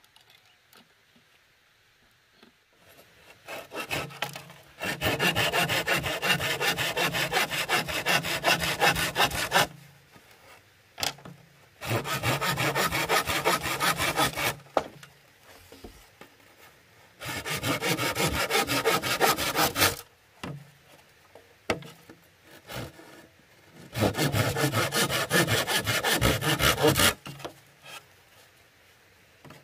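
Hand saw cutting through a green bamboo culm with quick back-and-forth strokes, in four bursts separated by short pauses.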